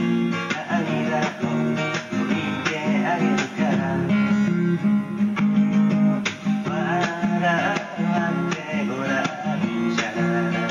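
Acoustic guitar strummed and picked in a steady rhythm, with a man singing over part of it.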